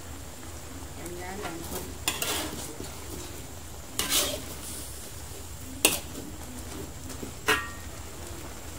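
Metal spatula stirring spinach in gravy in a metal wok, scraping the pan, with four sharp metal-on-metal clinks about two seconds apart.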